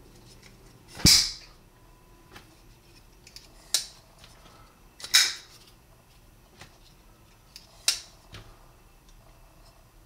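Southern Grind Bad Monkey folding knife being opened and snapped shut by hand: four sharp clicks of the blade and its titanium lock, roughly every two and a half seconds, with fainter clicks between.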